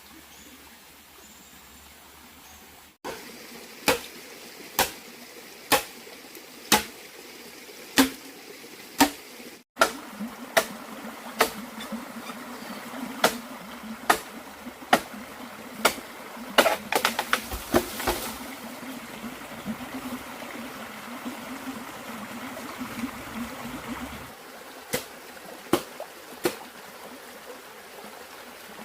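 Repeated sharp knocks, about one a second, in runs with a pause between, over a steady background of running water.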